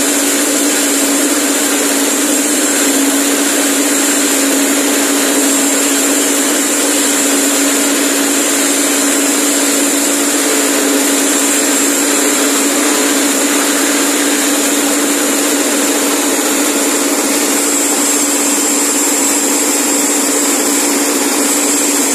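Grass chopper driven by a small petrol engine running steadily at full speed with a constant hum, chopping elephant grass as it is fed in.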